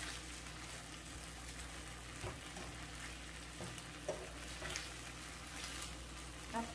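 Bok choy and sliced sausage sizzling in a frying pan, stirred with metal tongs that click against the pan a few times.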